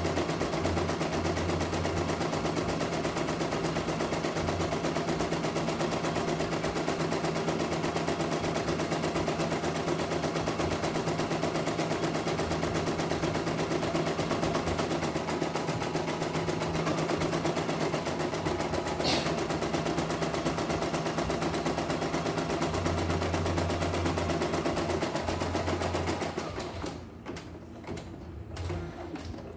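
CNY E900 computerized embroidery machine stitching a design: a fast, even clatter of needle strokes over a steady motor hum. It goes quieter for the last few seconds.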